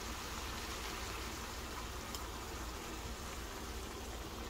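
Blended tomato sauce pouring into a hot pan of cooked ground beef and potatoes, sizzling and bubbling steadily as it hits the pan.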